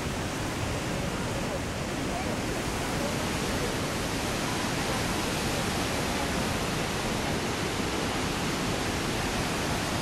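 Steady rush of water from Niagara Falls pouring over its brink into the gorge, a dense even noise that grows slightly louder about three seconds in.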